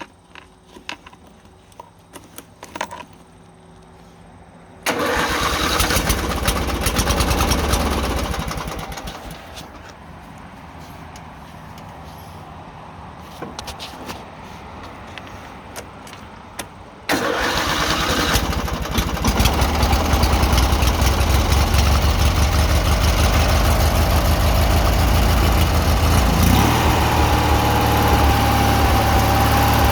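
Murray riding mower's 18 hp Briggs & Stratton V-twin engine being started and run. After a few light clicks it starts suddenly about five seconds in and eases to a lower level. From about seventeen seconds it runs louder and steadily, and a steady whine joins near the end.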